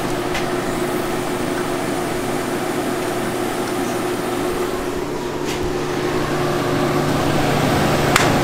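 Steady machine whir and hum from the fans and cooler of a TIG welding setup, with a few light clicks from the gas regulator and hoses being handled.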